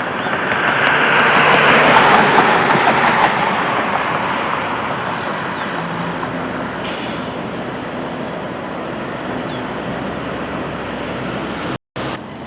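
A heavy vehicle passing close: a wide rush of engine and tyre noise that builds to a peak about two seconds in, then slowly fades into a steady traffic rumble.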